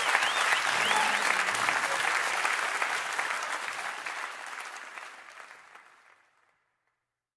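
Crowd applauding and cheering, with a few high whoops in the first second, fading out to silence over the last few seconds.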